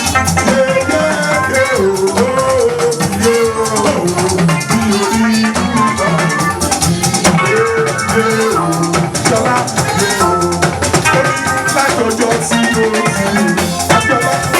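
Music with a rattle shaking steadily in time over guitar, drums and a moving melody line.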